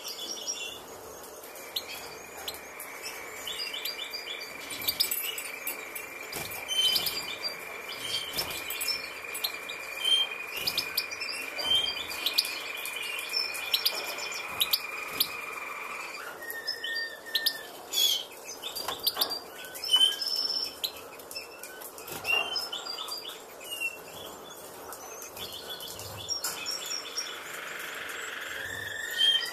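European goldfinches chirping: many short, high chirps scattered throughout. A steady high-pitched whine runs behind them for the first half and stops about halfway through.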